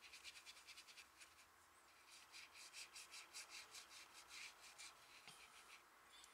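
A watercolor brush stroking back and forth across watercolor paper as it spreads black paint: faint, quick scratchy strokes, several a second, with a couple of brief pauses.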